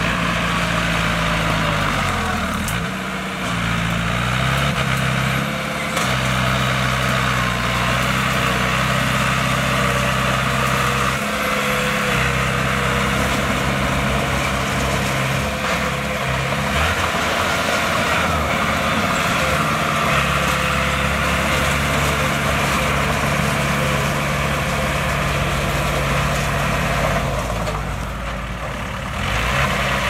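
Heavy diesel engine of earthmoving machinery running continuously, its revs dropping and picking up again several times, most deeply about two to three seconds in.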